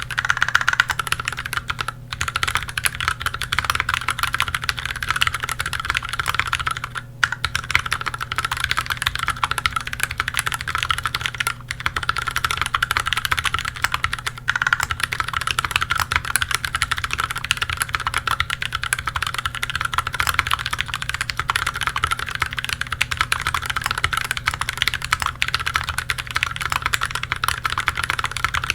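Continuous fast typing on a KBDFans Tofu HHKB mechanical keyboard with lubed Gateron Milky Brown tactile switches, an integrated aluminium plate, foam under the PCB and GMK keycaps: a dense, steady stream of keystroke clacks, broken by a few brief pauses.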